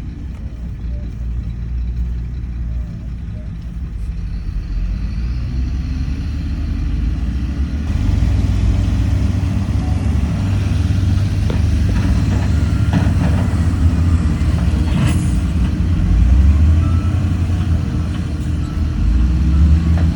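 Heavy diesel engines of earthmoving machinery running, one revving up in pitch about six to eight seconds in, after which the engine noise grows louder. A short hiss about fifteen seconds in.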